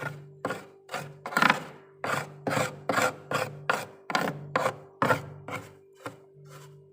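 A spoon scraping thick frost in quick, regular rasping strokes, about two a second, over a steady low hum.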